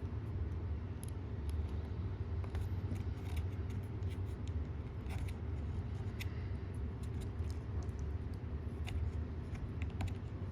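Scattered light metallic clicks and ticks as an Allen key works a small screw out of an RC car's rear wheel hub and small parts are handled, over a steady low hum.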